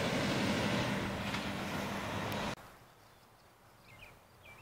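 A steady motor-vehicle engine hum with road noise that stops abruptly a little past halfway. Quiet outdoor air follows, with a few short, falling bird chirps near the end.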